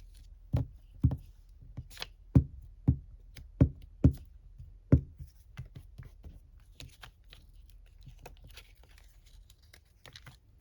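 Hands patting and pressing glued paper scraps down on a tabletop: about eight dull thumps in the first five seconds, then softer paper rustling and light taps.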